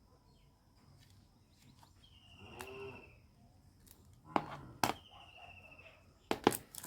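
A short, low animal-like call a couple of seconds in, then a few sharp clicks and knocks in the second half, the last pair loudest near the end.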